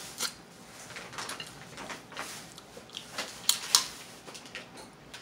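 Irregular clicks and crackles of Dungeness crab shell being picked apart by hand, with close-up eating sounds; two sharp clicks about three and a half seconds in are the loudest.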